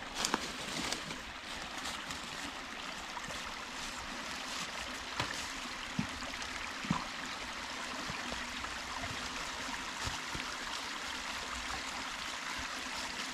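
Small woodland stream trickling and gurgling over rocks in a steady wash, with a few short knocks or crunches scattered through it.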